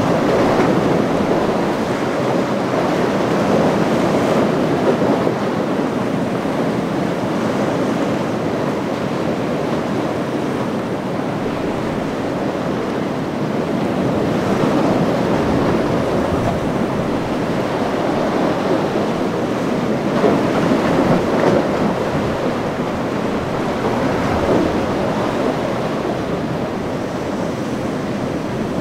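Breaking surf and wind rushing over the microphone, a steady loud roar of water that swells and eases every few seconds.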